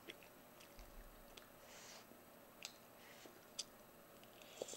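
Near silence broken by a few faint, sharp clicks and a soft smack of someone eating.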